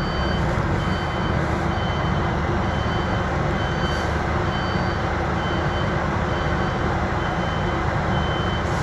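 City bus reversing: its reverse alarm gives short, high, evenly spaced beeps over the steady running of the bus's engine, heard from the driver's cab.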